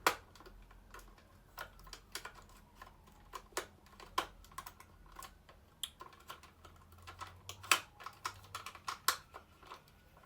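Irregular small clicks and taps of hard plastic parts of a Buzz Lightyear action figure being handled and worked on by hand, a few per second, with a sharper click at the start.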